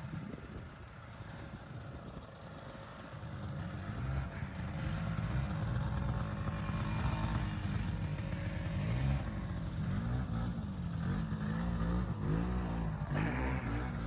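Two-stroke snowmobile engine running on a trail, getting louder about four seconds in, its pitch rising and falling over and over as the throttle is opened and eased.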